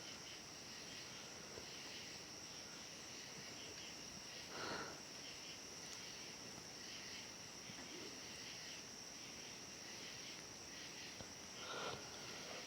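Two short nasal sniffs, about seven seconds apart, over a faint, steady, high-pitched background whine.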